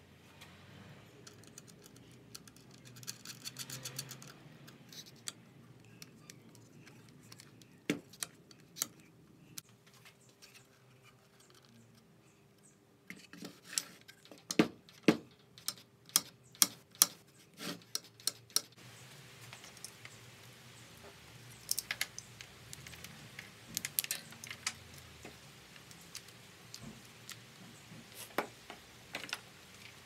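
Hand work on a wooden bench rig: small metal parts such as washers and screws clinking, and a string of sharp clicks and knocks of wood and metal, densest and loudest between about 13 and 19 seconds in.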